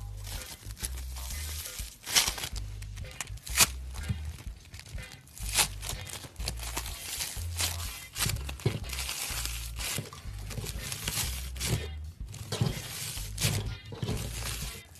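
Crunchy slime being squeezed and pressed, giving irregular crackles and pops, over background music with a steady bass line.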